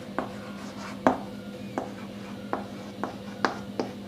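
White chalk tapping and scraping on a chalkboard as letters are written, a run of sharp irregular taps with the loudest about a second in and another strong one near the end.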